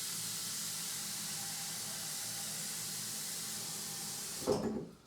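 Kitchen tap running steadily into a saucepan as it fills with water. It stops suddenly near the end, just after a short knock.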